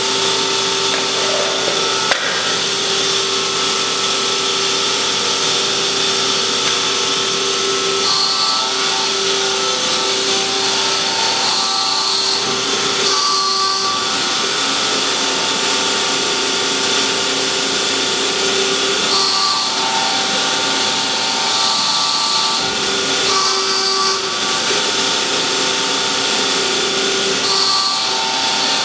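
Hydraulic power unit of a 1999 Strippit LVD 165-ton CNC press brake running with a steady whine, its tone shifting every few seconds as the machine works. A single click about two seconds in.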